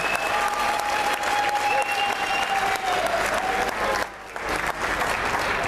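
Audience applauding, dense clapping, with a held note carrying over the claps for the first three seconds. The sound drops out briefly about four seconds in, then the clapping resumes.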